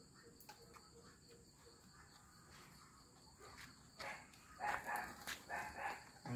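Crickets chirring faintly and steadily. From about four seconds in, irregular wet tearing and scraping as grilled chicken is pulled apart by hand on a steel plate.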